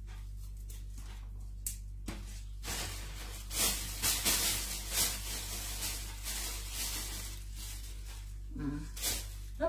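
Thin plastic bag crinkling and rustling as hands rummage in it, in irregular surges for a few seconds, starting about two and a half seconds in.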